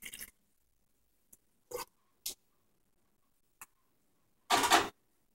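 A few short clicks and knocks of kitchen items being handled, with a louder clatter lasting about half a second near the end.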